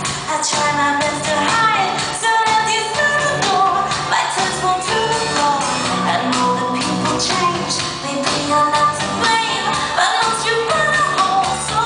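Live electropop song: a woman singing lead into a microphone over synths and a steady drum beat, heard through the PA from the audience.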